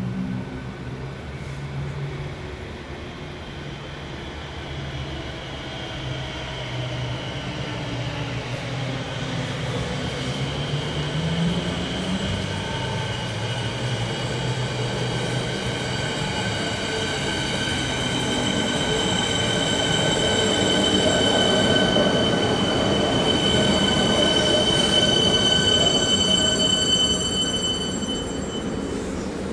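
Metro electric suburban train moving at the station: a low running hum whose pitch rises partway through, joined by a high, steady whine or squeal of several tones that grows louder and then eases off near the end.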